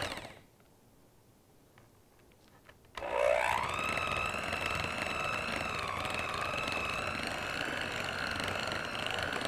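Electric hand mixer beating a ricotta and cream cheese mixture, its motor whining steadily. The sound cuts out just after the start, then the motor spins back up with a rising whine about three seconds in and runs steadily.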